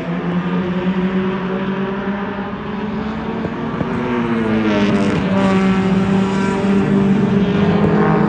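Several race car engines running on the track. Their pitch sags in the first half, then climbs as they accelerate, and the sound grows louder toward the end.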